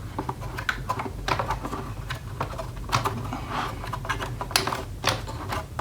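Screwdriver prying at the plastic case of a Durgod K320 Taurus mechanical keyboard to unlock its inner locking tabs: irregular small clicks and scrapes of the tool working against the plastic.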